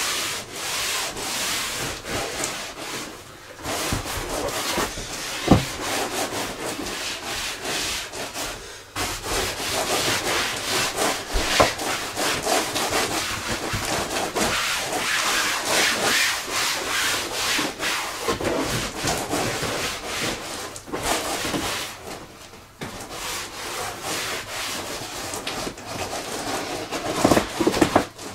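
Cloth rubbing over the PVC hull of a Seahawk 2 inflatable boat in quick back-and-forth wiping strokes, with a few short pauses.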